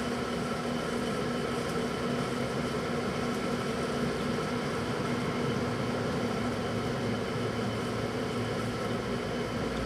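Microwave oven running, a steady hum with its fan noise, a deeper low hum coming in near the end.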